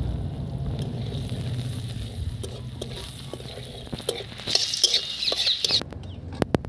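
Onions frying in oil in a steel kadai while a metal spatula stirs them, scraping and clicking against the pan. The clicks begin about a third of the way in. A stretch of louder high-pitched hiss comes about two-thirds of the way through.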